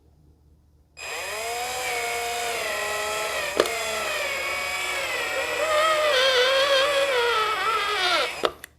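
Cordless drill driving a screw into the shelf's wooden boards: its motor whines steadily, the pitch wavering as the screw bites, then winds down and stops near the end.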